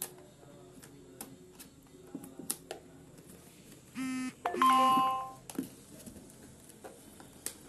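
An electronic chime in two notes about four seconds in: a short buzzy note, then a louder ringing note that dies away over about a second. Faint clicks and rustling of the box being handled run underneath.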